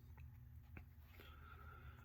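Hunter Original ceiling fan's pancake PSC motor running on low speed: a faint, steady low hum, with a couple of light clicks.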